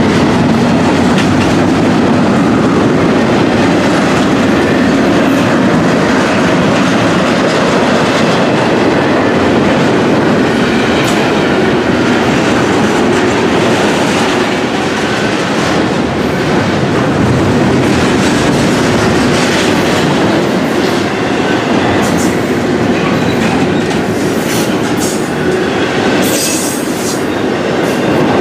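Double-stack intermodal freight train rolling past at speed: a steady, loud rumble of steel wheels on rail with the clickety-clack of wheels over rail joints. There are a few brief high-pitched squeals toward the end.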